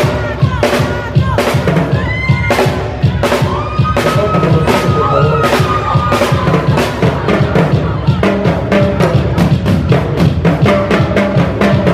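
A live cumbia band playing, with the drum kit driving the beat over bass and held melody notes; the drum strokes come faster in the last few seconds.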